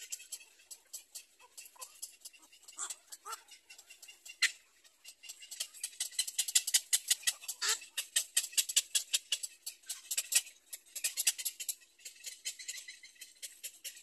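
Black-crowned night heron chicks in the nest giving rapid ticking begging calls, about ten clicks a second, louder through the middle. A few short, harsher calls are mixed in.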